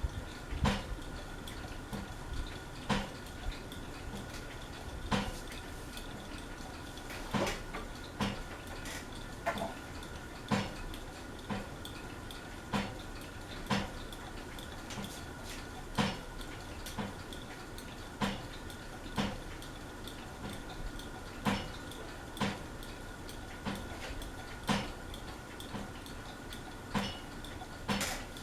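Craftmade Phoenix ceiling fan running with a light clink or rattle about once a second, over a faint steady hum. The clink keeps time with the fan's wobble, a sign that it is out of balance.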